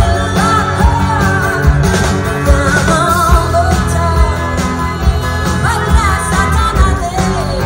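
Rock music with a singer holding wavering notes over a steady bass and drum beat.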